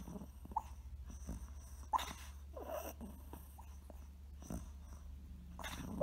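Small dog snoring in its sleep: irregular short snorts with little squeaky breaths between them, the loudest about two seconds in and at the end.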